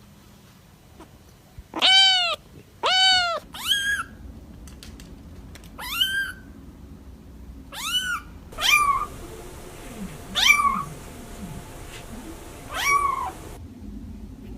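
Kitten mewing: about eight short, high-pitched mews a second or two apart, the first two rising and falling, the later ones sweeping upward in pitch.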